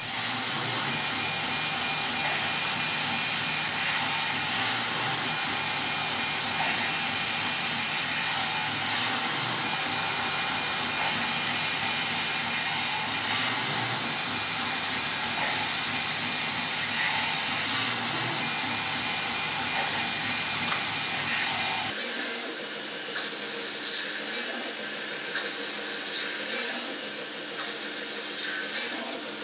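Tormach CNC mill drilling small holes in an aluminium plate, under a steady hiss of mist coolant spray. About three-quarters of the way through, the sound turns slightly quieter and loses its low hum.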